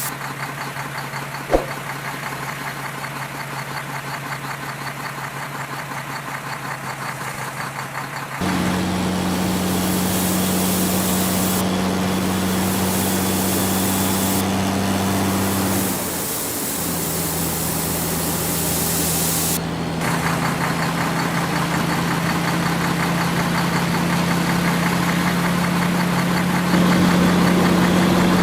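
Diesel engine of heavy earthmoving machinery running steadily. Its pitch and loudness jump abruptly several times, first about a third of the way in. There is a single short click near the start.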